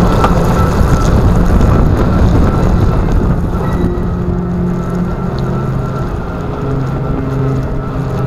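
Riding noise picked up at a Solowheel electric unicycle's foot platform: a loud, steady rumble of the tyre on wet pavement and wind on the microphones, with a hum that steps lower in pitch about halfway through and eases slightly in loudness.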